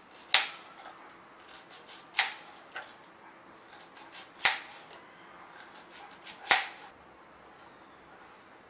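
Kitchen knife cutting through an onion and knocking on a plastic cutting board: four sharp knocks about two seconds apart, with fainter ticks of smaller cuts between them.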